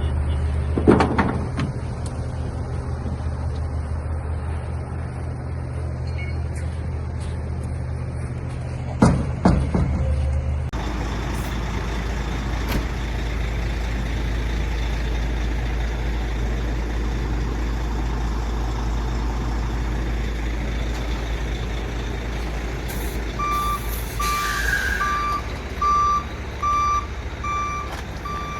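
Heavy vehicle diesel engines running steadily, with two sharp metallic knocks in the first part. Near the end a reversing alarm beeps about twice a second, and a short hiss like an air release sounds once.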